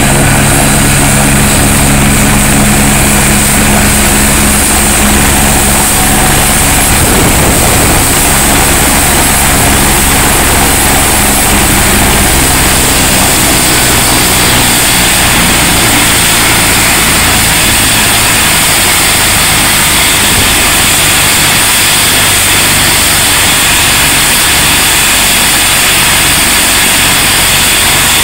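AgustaWestland AW109 helicopter running on the ground with its main rotor turning: a steady high turbine whine over a low, even hum from the engines and rotor. The low hum changes character about seven seconds in.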